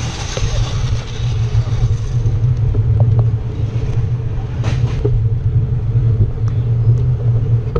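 Motorcycle engine running steadily under way, a loud low drone, with one short sharp click about four and a half seconds in.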